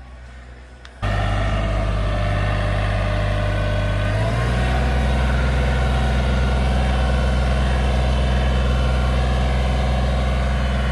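Tractor engine running steadily. It sets in abruptly about a second in, and its speed steps up a little about four seconds in.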